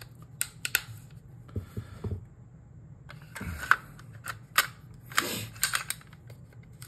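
A Sig Sauer P320 comp slide assembly being slid onto a P320 pistol frame: a string of sharp metallic clicks and a few soft knocks, with a brief scrape about five seconds in.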